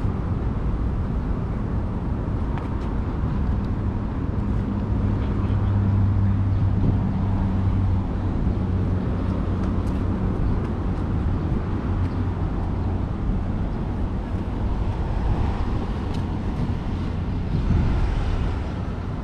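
Steady road traffic rumble with wind buffeting the microphone. A low engine drone comes in about three seconds in and fades out after about ten seconds.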